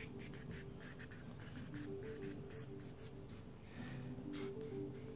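A quick run of short, scratchy brushing noises over a faint melody of held notes that steps between a few pitches.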